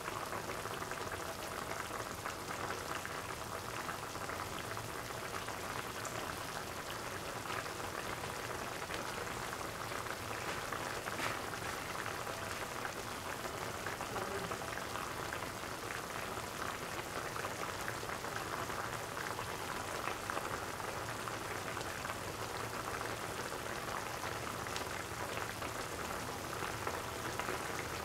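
Prawn curry simmering in a pot: a steady, dense patter of small bubbling pops as the mixture boils gently.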